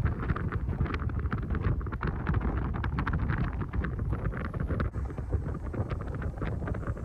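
Vehicle driving, a steady low rumble with wind buffeting the microphone, overlaid by a rapid, irregular clatter of small clicks and rattles.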